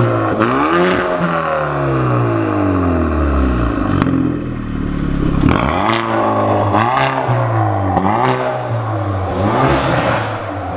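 Hyundai i30 N Performance's 2.0-litre turbocharged four-cylinder revved while standing still, heard from its exhaust with the petrol particulate filter replaced by a dummy pipe. A long rev peaks within the first second and falls away slowly over about three seconds, then several shorter blips follow, with a few sharp cracks as the revs drop.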